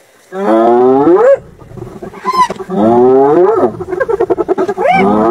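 A large hoofed animal bellowing in distress while hyenas feed on it: three drawn-out, moo-like calls, each about a second long, rising in pitch and dropping off at the end. A short, high, rising squeal comes between the first two calls and again near the end.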